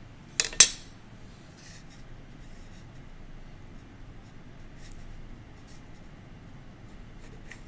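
Pen writing on paper in short scratchy strokes, marking points and drawing a line along a plastic ruler. Two sharp taps about half a second in are the loudest sounds.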